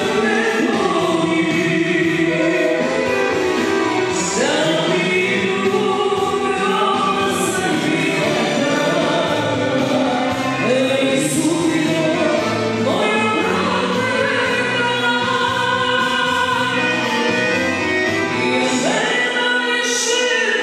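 A man and a woman singing live into handheld microphones over amplified band music with a steady beat, played through the hall's loudspeakers.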